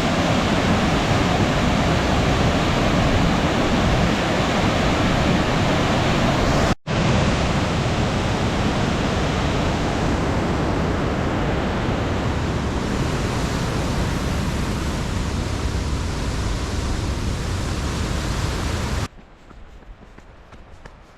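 Steady rushing of falling water. It cuts out for an instant about seven seconds in, then drops away sharply near the end, leaving a much quieter background with a few faint clicks.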